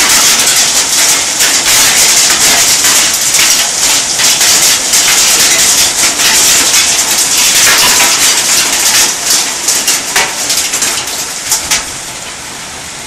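Heavy hail and rain pelting down, a dense loud hiss full of sharp ticks of hailstones striking hard surfaces. It falls off noticeably about twelve seconds in.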